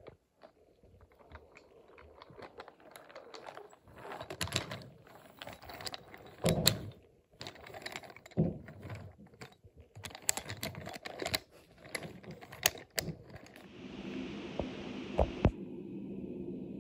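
Wooden toy trains clicking and clacking as they are pushed along wooden track and bumped against the track and each other, in irregular runs of taps and knocks. Near the end a steady hiss and then a low steady hum come in under the clicks.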